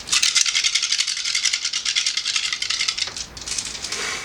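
A handful of dice shaken and rattling in cupped hands before a roll: fast, dense clicking for about three seconds, a brief pause, then a second shorter rattle.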